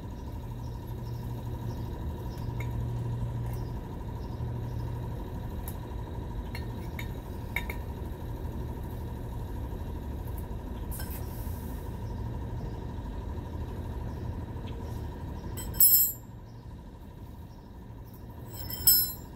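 Metal parts and tools clinking and tapping while a 1982 Sachs moped is taken apart: light scattered clicks, then two sharp ringing metal clinks near the end, over a steady low hum.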